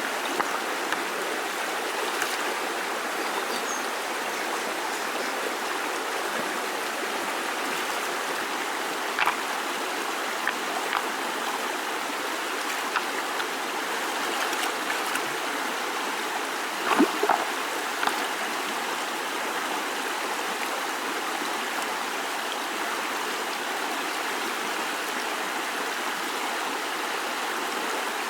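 Steady rushing of flowing water, with a few brief splashes or knocks, one about nine seconds in and two close together around seventeen seconds.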